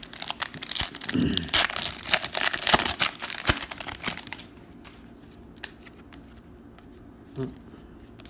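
Foil wrapper of a pack of football trading cards being torn open and crinkled: a dense, crackly rustle for the first four and a half seconds or so. After that it drops to a few soft clicks.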